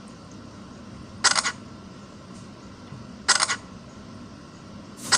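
Samsung Galaxy Tab 3's camera shutter sound played through the tablet's speaker, three short clicks about two seconds apart, as photos are taken.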